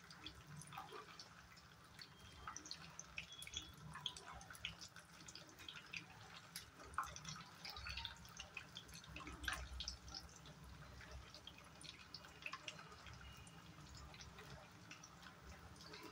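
Vermicelli cooking in milk in a steel pan, with faint, scattered small bubbling pops and clicks as it simmers; a steel ladle stirs through it at the start.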